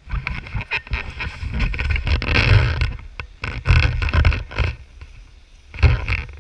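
Wind buffeting an action camera's microphone in irregular gusts, mixed with scrapes and knocks from the camera pole being handled.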